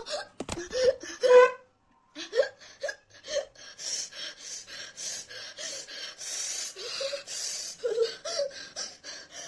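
A woman hiccuping and gasping in quick, breathy bursts, about three a second, with short voiced hiccup sounds among them. Her mouth and throat are burning from the extremely hot Jolo chip. A couple of knocks come at the very start, then a brief pause before the gasping runs on.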